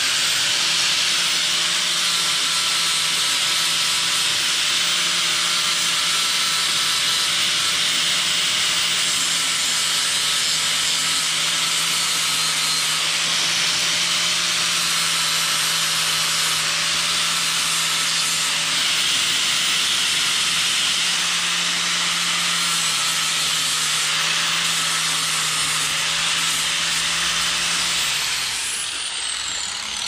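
Angle grinder running steadily with a high whine, grinding paint off a steel truck body's edge down to bare metal to prepare it for welding. Near the end it is switched off and spins down, its pitch falling.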